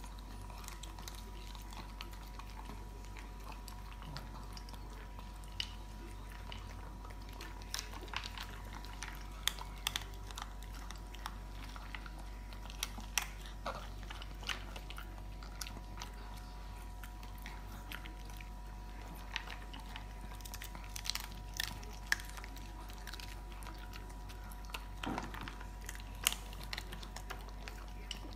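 Two shih tzus chewing hard dry kibble, with irregular crunches and sharp clicks scattered throughout.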